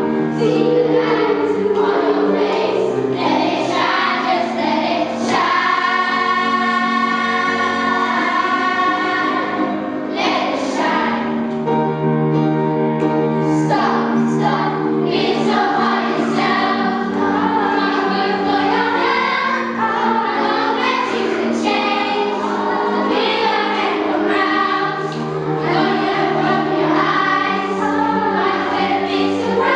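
A choir of school children singing a song together, with long held notes a few seconds in and again near the middle.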